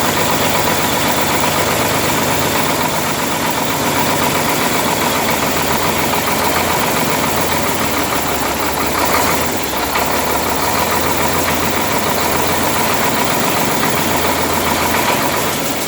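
MT-86 engine running steadily just after a major overhaul, with a slight dip in level about ten seconds in.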